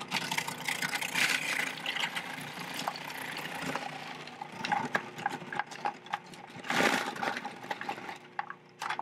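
Food processor motor running as carrots are pushed down the feed tube onto the shredding disc, with a steady hum under a grating, clattering noise; a louder burst of grinding comes about seven seconds in.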